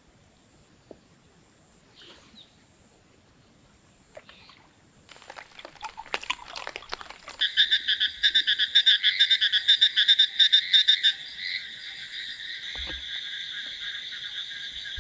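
Frogs calling in a chorus of rapid, pulsing trills that set in about seven seconds in, loudest for a few seconds and then carrying on a little softer.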